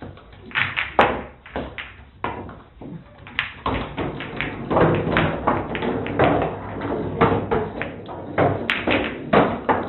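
A rapid, irregular run of taps and thumps, growing busier after about four seconds.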